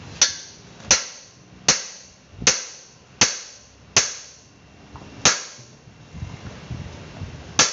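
Metal-on-metal blows from a hand tool striking a part on a car's underside: eight sharp, ringing strikes, mostly about three-quarters of a second apart, with a longer gap before the last one.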